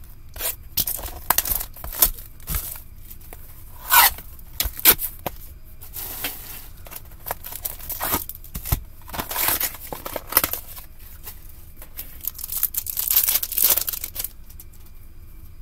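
Box of 2022-23 Allure hockey cards and its packs being torn open by hand: an uneven run of short tearing and crinkling sounds with sharp scrapes, loudest in longer rips near the middle and toward the end.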